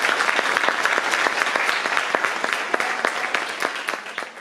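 Audience applauding, many hands clapping together; it dies away near the end.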